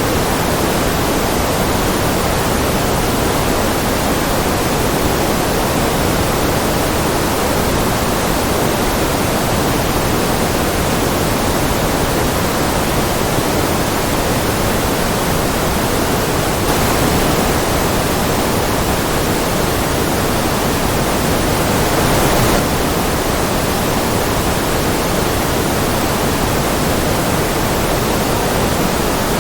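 Steady white noise: an even, unbroken hiss across the whole range, briefly a little louder twice, about 17 and 22 seconds in.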